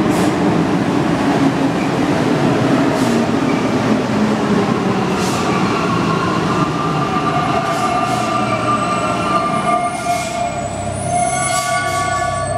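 Alstom NS-93 rubber-tyred metro train running into the platform and slowing to a stop. The rumble of the moving train gives way, from about halfway, to several high whining tones as it slows. A low steady hum comes in near the end once it stands.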